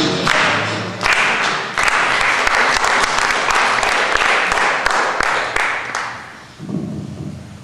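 Audience applauding in a hall, a dense clatter of many hands clapping that fades away about six seconds in, with a brief lower sound near the end.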